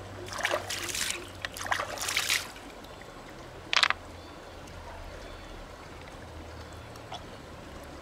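Water splashing and trickling in a few short bursts in the first two and a half seconds, then one brief sharp splash near four seconds in.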